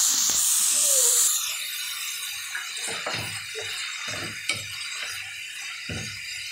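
Shredded cabbage sizzling in hot oil in a metal pot while a wooden spoon stirs and scrapes through it. The sizzle is loud for about the first second and a half, then settles to a softer hiss under the repeated strokes of the spoon.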